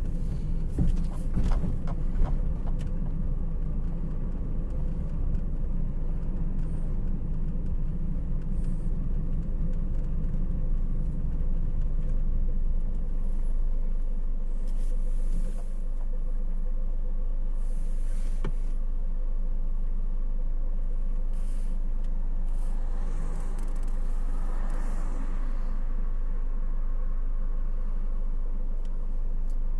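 Engine and road noise heard inside a moving car's cabin: a steady low rumble, with a few knocks in the first couple of seconds and a slight drop in level about halfway through.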